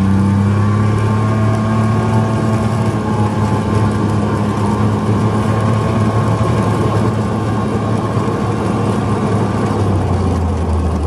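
Engine of an open-cab off-road vehicle running under way, picking up speed at the start and then holding a steady pitch, with wind rushing through the open cab.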